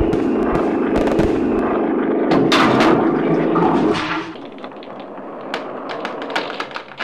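Rumbling and crackling of ground cracking and crumbling in an earthquake, loud and dense with sharp cracks. About four seconds in it drops to quieter scattered crackles and ticks.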